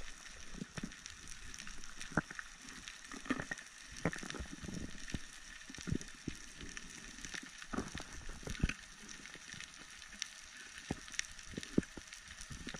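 Underwater crackling: a steady fizz of faint clicks with louder sharp clicks and soft low knocks at irregular moments.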